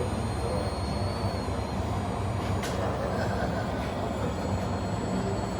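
Radio-controlled model trucks running: a steady mechanical rumble with a faint high whine that fades in and out, and a single sharp click a little past halfway.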